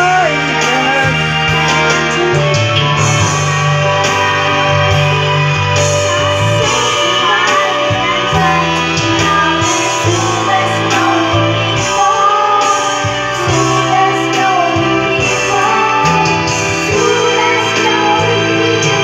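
Karaoke singing: a voice sings into a microphone over a loud backing track with guitar and bass.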